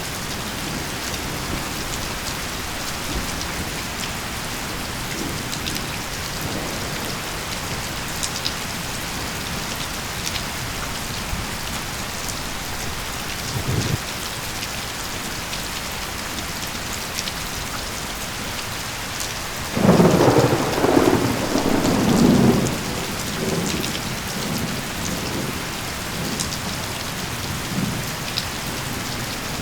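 Steady rainfall hissing, with scattered drops ticking. A short low thump comes about halfway through, then a loud burst of thunder about two-thirds of the way in, rumbling for two to three seconds before fading back under the rain.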